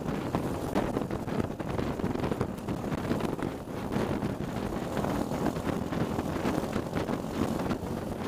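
Racing kart engine running at speed, heard from onboard the kart and largely covered by heavy wind buffeting on the microphone.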